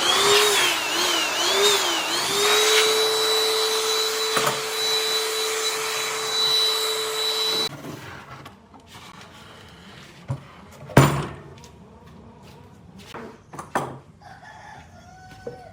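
Handheld power tool motor running with a whining hum whose pitch dips and rises a few times, then holds steady, before cutting off abruptly about eight seconds in. A few workshop knocks follow, the loudest a sharp clack about eleven seconds in.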